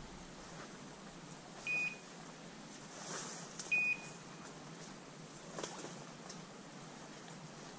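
Two short, high electronic beeps about two seconds apart from a hunting dog's beeper or training collar, with faint rustling and snapping of brush underfoot.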